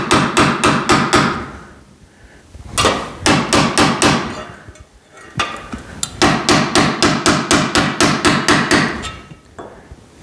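A hammer rapidly tapping a bent metal pipe lying on a concrete floor, about six metallic strikes a second, in three runs with short pauses between: the pipe's bend being squeezed into shape.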